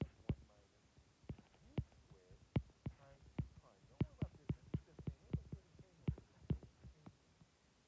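Stylus tapping and clicking on an iPad's glass screen while handwriting, an irregular run of sharp ticks, a few every second.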